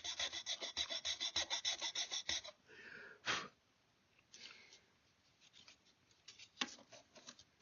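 A fine, sharp hand file working in quick, short strokes, several a second, which stop about two and a half seconds in. A brief scrape, light handling rustles and a sharp click follow as the part is tried in place.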